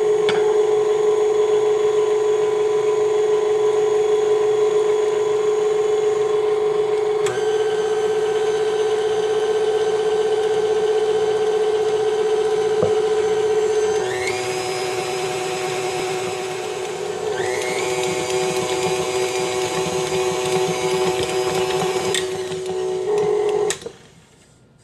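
Electric stand mixer running with its dough hook turning flour and warm water into a soft bread dough: a steady motor hum that shifts in tone about halfway through and stops near the end.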